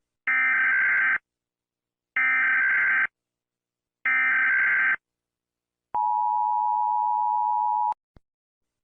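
Emergency Alert System tones: the SAME header sent three times as one-second blasts of screechy digital data, each about two seconds apart, followed by the two-note attention signal held steady for about two seconds. A click follows, and another blast of data begins right at the end.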